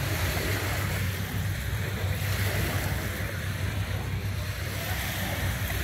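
Steady outdoor noise of wind rumbling on the microphone and small lake waves washing at the shore, even in level throughout.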